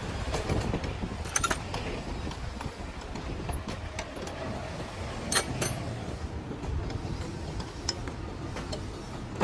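Several sharp metallic clinks, the loudest about a second and a half in and again around four and five seconds in, over a steady low background rumble: hand tools and metal parts knocking together during diesel injection pump repair work.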